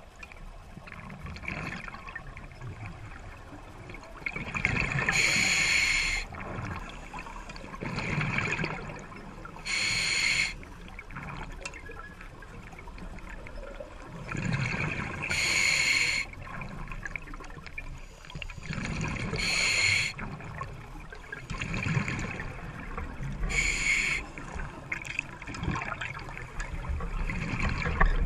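Open-circuit scuba breathing heard underwater: a hissing inhalation through the regulator about every four to five seconds, five times, with a low bubbling rumble of exhaled bubbles between the breaths.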